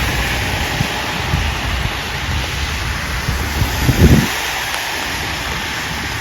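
Steady hiss of rain and wet street noise, with a brief low rumble of wind buffeting the microphone about four seconds in.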